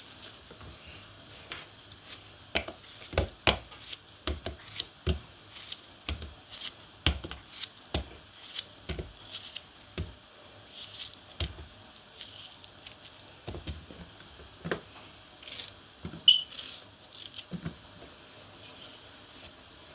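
Ripe plantains being peeled and sliced in the hand with a kitchen knife: irregular soft knocks and clicks as the blade cuts through and slices drop into a plastic tray, with the peel tearing away, and one sharper click near the end.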